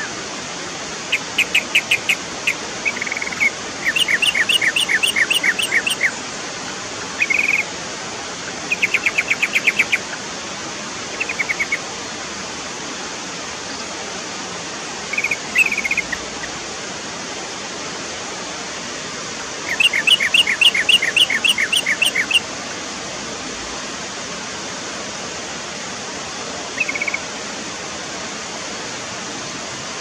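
Yellow-vented bulbul giving bouts of quick, stuttering chatter, about five notes a second, in bursts a few seconds apart, the longest about four seconds in and again about two-thirds through. A steady hiss runs underneath.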